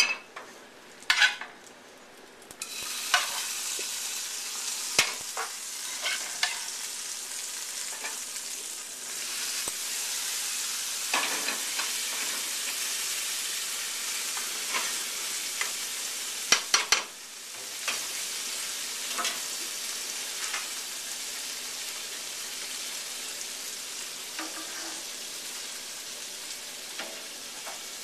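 Food sizzling in a hot frying pan. The sizzle starts about two and a half seconds in and holds steady, with scattered sharp clicks and knocks of a utensil against the pan.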